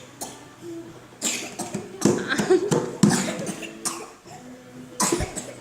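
A young child coughing: four separate coughs spread over a few seconds.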